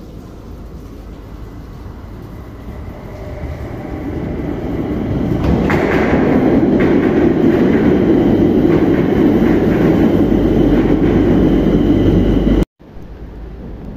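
Madrid Metro train pulling in alongside the platform: its running noise grows steadily louder over the first five seconds, with a few sharp clicks as it draws level, then a loud steady rumble of the passing cars that cuts off suddenly near the end.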